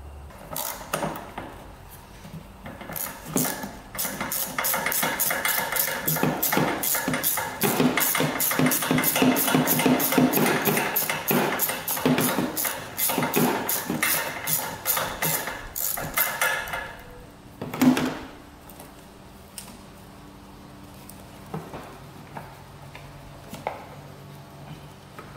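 A ratchet wrench clicking rapidly and evenly in runs for about thirteen seconds as a battery terminal bolt is turned. Then one sharp knock, followed by faint handling of parts.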